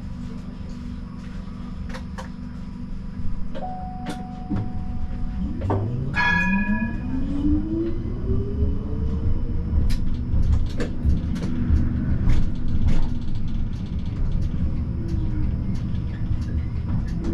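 Siemens Combino tram pulling away from a stop: its traction drive whine rises steadily in pitch as it accelerates, over a low rumble. A short beep sounds about four seconds in, and a brief ringing signal a couple of seconds later.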